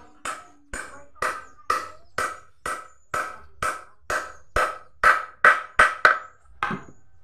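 Hammer striking the corner joint of a wooden window frame, about two blows a second, each with a short ring. The blows come harder and a little quicker past the middle, then stop abruptly shortly before the end.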